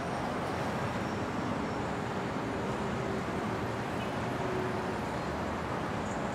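Steady background ambience like distant road traffic, an even hiss and rumble with no distinct events.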